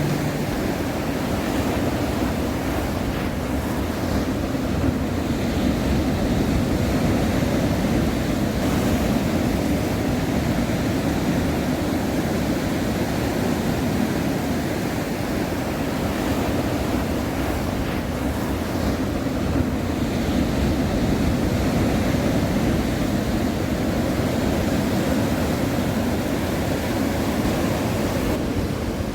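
Sea waves washing and surging in a steady, continuous rush, with wind blowing on the microphone.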